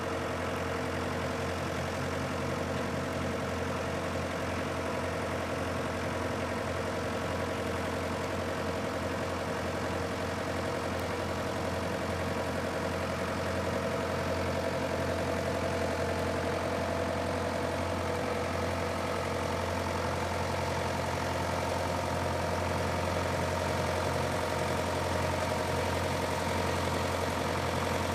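White 2-60 tractor engine running steadily at low speed, with a constant low hum and little change in pitch.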